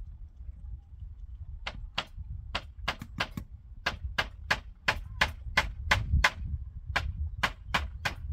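Steady hammering: sharp, dry blows at about three a second, starting a couple of seconds in and keeping on.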